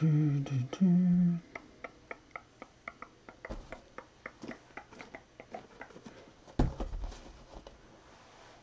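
A person's voice humming or singing briefly, then a quick run of light clicks, about five a second, with one low thump about six and a half seconds in.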